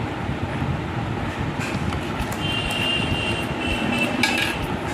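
Steady low rumbling background noise. Over it, scissors cut at a cardboard box with a click, a thin high squeak comes about halfway through, and the scissors are set down on a glass tabletop with a clatter about four seconds in.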